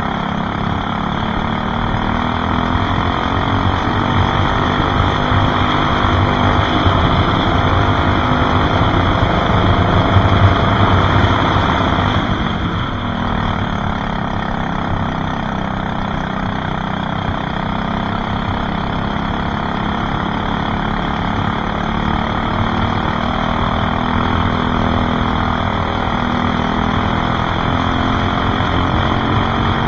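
Racing kart engine at full race pace, heard from on board. Its pitch climbs steadily for about twelve seconds, drops sharply as the driver lifts for a corner, then climbs again.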